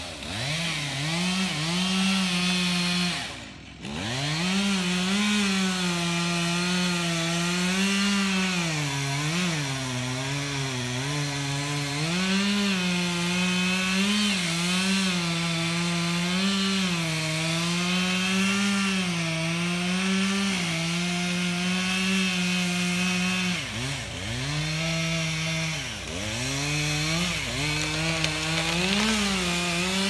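Two-stroke chainsaw running at high revs through a felling cut, its pitch rising and falling as it bogs under load and recovers. The engine drops off throttle briefly about three and a half seconds in, and dips twice more near the end.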